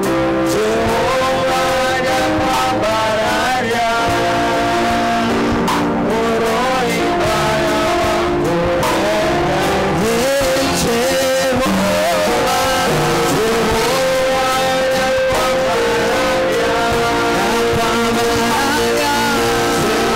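A church worship team singing together into microphones over instrumental backing, the lead voice sliding and bending between held notes.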